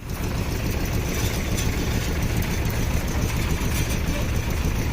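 SANY SY35U mini excavator's diesel engine running steadily with a deep, even rumble.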